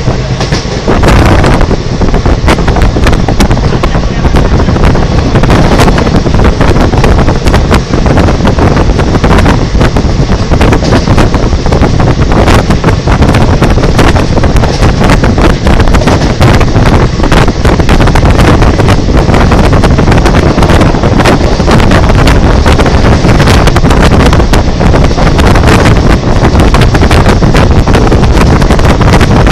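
Express passenger train running past at speed close by: a loud, steady rumble with rapid wheel clatter over the rails, and wind buffeting the microphone.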